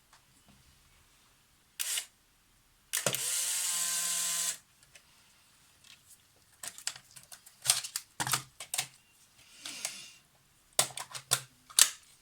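A Polaroid instant camera's mechanism is cycling. A short mechanical burst is followed by about a second and a half of steady motor whir, then a run of quick, irregular shutter clicks and snaps. The clicks come from a faulty shutter that, as the owner describes it, opens and closes very fast "like a machine gun" when the exposure should happen.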